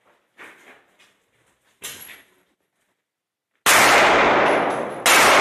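Two pistol shots about a second and a half apart, very loud with a long echoing tail in the indoor range hall, after a few fainter knocks and movement noises.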